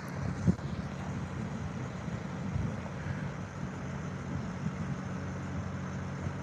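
Vehicle engine idling, a steady low hum, with a short thump about half a second in.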